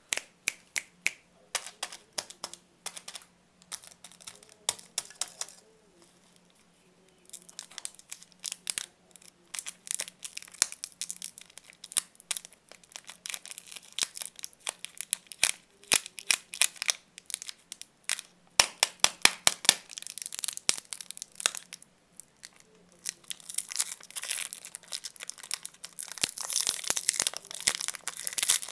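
Plastic candy wrapper crinkling and crackling in the hands, then tearing as it is peeled off a coconut lollipop. The crackling comes in quick bunches with a couple of short pauses and is thickest near the end.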